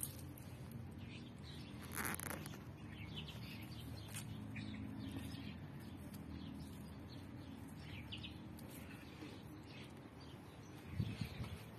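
Small birds chirping in short, scattered calls over a steady low background rumble, with a brief noisy burst about two seconds in and a couple of thumps near the end.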